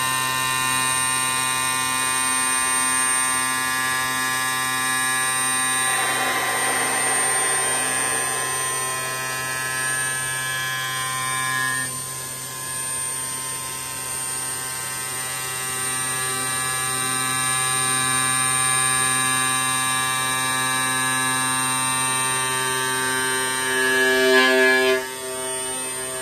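Horizontal glass milling and drilling machine running: a steady motor whine of many tones from the spindle while its tool grinds a circular cutout in a glass sheet under coolant spray. A rougher grinding noise swells a few seconds in, and a louder grinding burst comes near the end, then cuts back.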